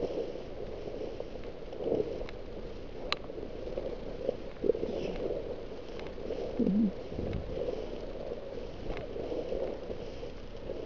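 Footsteps through tall grass, with the stalks swishing against legs and clothing in soft strokes every second or two. There is a sharp click about three seconds in and a short, low, wavering hum near seven seconds.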